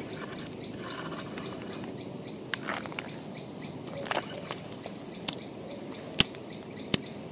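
Steady outdoor background hiss with about six short, sharp clicks scattered through the second half, one of them louder than the rest.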